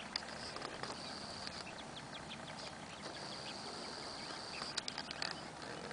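Quiet ambience on open water: faint steady water noise, with a thin high steady tone in two stretches and a few light ticks near the end.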